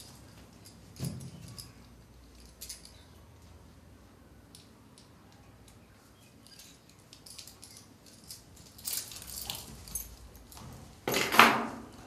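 Metal handcuffs handled at the wrists, the chain and cuffs clinking and clicking now and then, with a louder rattling clatter of the cuffs shortly before the end.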